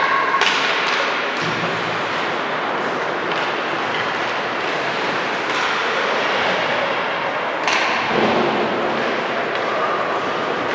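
Basketball game in a gym: several separate thuds of the ball bouncing on the court, over steady echoing background noise of the hall.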